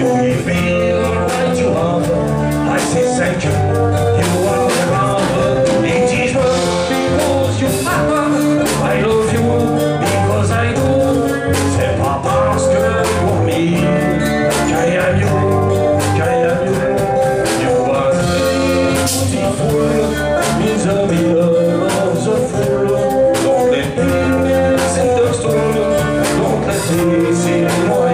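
A live band playing through a PA: electric and acoustic guitars, electric bass and a drum kit keeping a steady beat.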